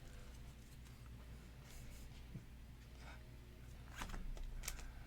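Faint rustling of plastic card sleeves being handled, with a few short scrapes about four seconds in, over a low steady room hum.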